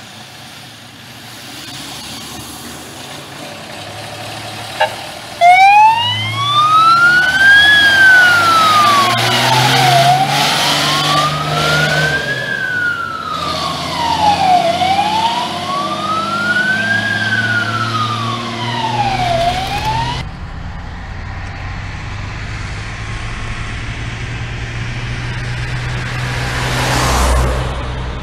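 Star 266 fire truck approaching and passing on an emergency run: its engine grows louder, then about five seconds in its siren comes on with a slow wail, rising and falling about every four and a half seconds. The siren cuts off suddenly about two-thirds of the way through, leaving steady distant engine and road noise with one swell near the end.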